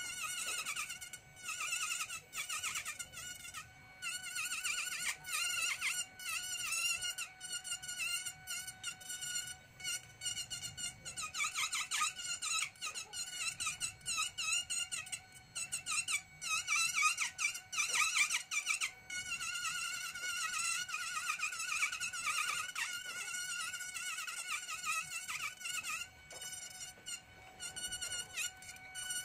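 Handheld electric micro-motor rotary carving tool running at high speed, its bit grinding detail into ngọc am (Fujian cypress) wood: a thin high whine whose pitch wavers as the bit bites and eases, with brief dips every few seconds as it is lifted off the wood.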